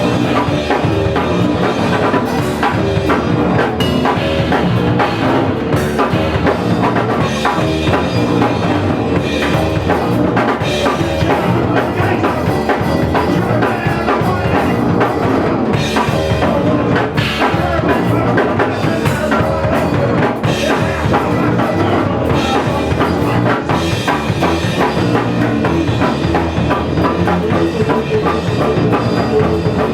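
A two-piece punk band playing live: a driving bass guitar over a fast, busy drum kit, with frequent cymbal and snare hits.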